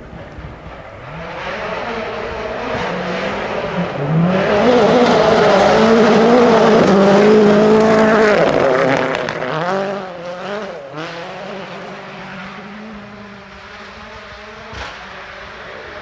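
Ford Fiesta RS WRC rally car at full speed on a gravel stage, its turbocharged four-cylinder engine rising and falling with gear changes. It comes up to pass loudest midway, with gravel and dust spraying from the tyres, then fades away after about 10 seconds.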